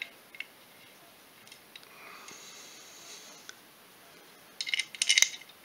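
Quiet workshop room tone, then a quick run of sharp clicks and clatter about four and a half seconds in: hand tools being handled for torquing down the cylinder-head bolts.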